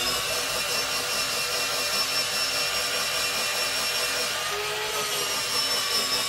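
Morphy Richards electric grater-slicer running steadily while it shreds carrots.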